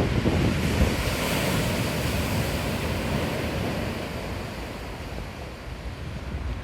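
Rough sea surf raised by an approaching typhoon: a wave breaks and washes in, loudest in the first second or two and then easing off, with wind buffeting the microphone.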